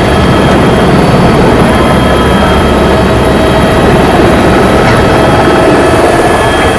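Helicopter engine and rotors running loud and steady at takeoff, a dense rumble with a steady high whine over it, heard from inside the cabin.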